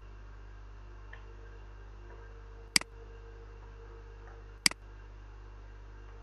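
Two sharp computer mouse clicks about two seconds apart, placing points with the pen tool in drawing software, over a steady low hum.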